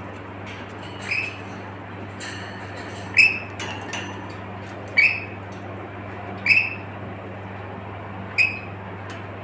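A pet bird, plausibly a lory parrot, giving about six short, sharp squeaky chirps a second or two apart, each sliding slightly down in pitch. Under them runs a steady low hum, fitting an air-conditioned room.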